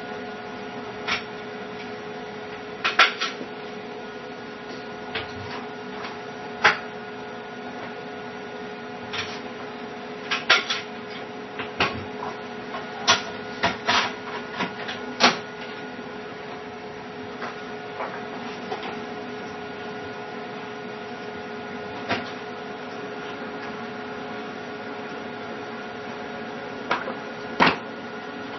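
A steady electrical hum holding several fixed tones, with scattered sharp clicks and taps at irregular moments, the loudest about three seconds in, around ten to fifteen seconds in, and near the end.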